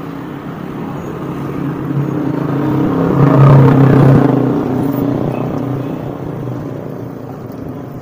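A motor vehicle driving past: its engine hum swells to a peak about halfway through, then fades away.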